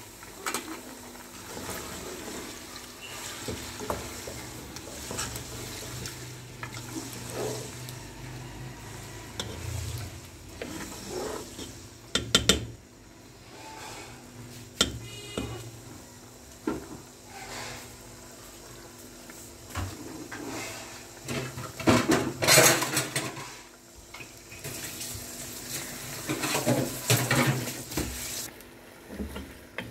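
Bone-in meat sizzling in hot ghee in a metal pot, stirred with a wooden spatula that knocks and scrapes against the pot now and then; the loudest clatter comes a little past two-thirds of the way through, with more near the end.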